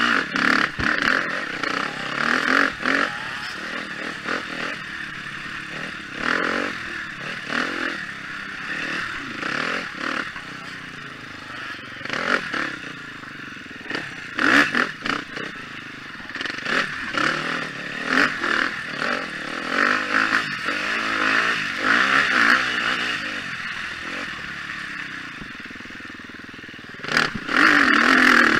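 The single-cylinder four-stroke engine of a KTM 250 XC-F enduro motorcycle revving up and down as it is ridden hard over rough dirt track. The bike clatters and knocks over the bumps.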